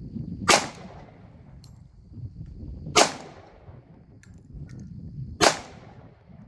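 Glock pistol in .45 ACP firing three single shots, evenly spaced about two and a half seconds apart: slow, aimed fire.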